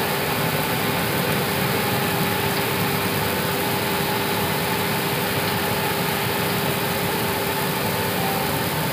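Steady cockpit noise of an Airbus A320 taxiing onto the runway with its engines at idle: a constant even hum with a faint steady tone running through it.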